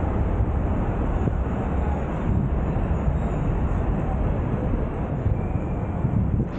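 Steady wind rumble and road noise picked up by a roof-mounted 360 camera's microphone on a moving car in city traffic.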